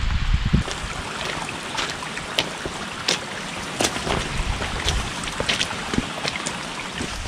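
Steady hiss of rain and runoff on a wet, rocky trail, with scattered sharp drips and taps. Wind buffets the microphone in the first half-second.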